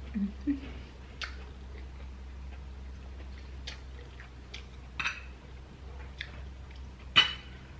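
Eating at a table: irregular light clicks of a spoon and fork against a plate, about half a dozen, the loudest one near the end, over a steady low hum.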